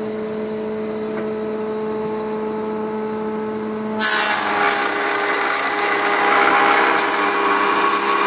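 Woodworking jointer running idle with a steady hum. About four seconds in, a board is fed across the spinning cutterhead and the loud, dense noise of the knives planing the wood begins.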